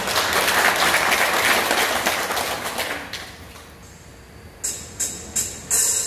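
Audience applauding, the clapping fading out after about three seconds. Near the end come a few sharp taps.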